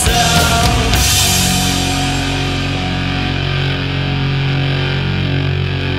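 Heavy, distorted guitar rock: drums and cymbals stop about a second in, leaving distorted guitar and bass chords held and ringing on.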